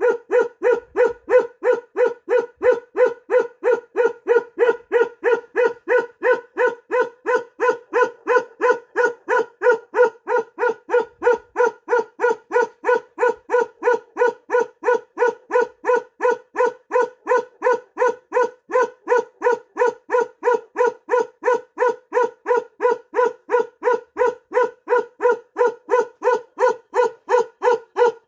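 Large mastiff-type dog barking in a steady, even rhythm, about two barks a second without a break, every bark on the same pitch.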